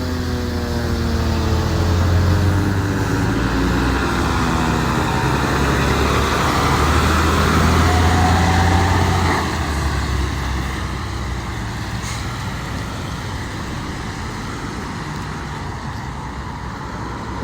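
Fire engine's siren winding down in pitch over the first few seconds, over the truck's heavy diesel engine rumble, which eases off about nine and a half seconds in and settles to a lower steady run.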